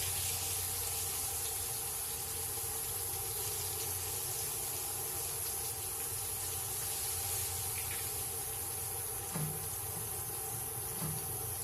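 Fish fillets frying in hot peanut oil in a cast-iron pan: a steady sizzle.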